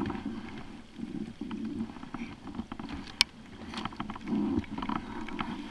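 Rain falling on the water and on a plastic kayak, with scattered sharp taps of drops and one louder tap about three seconds in, over a low, uneven rushing noise.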